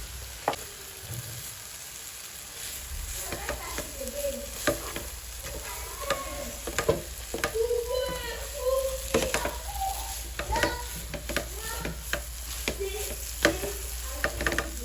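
Vegetable noodles stir-frying in a pan: sizzling, with repeated clicks and scrapes of a utensil against the pan as it is stirred.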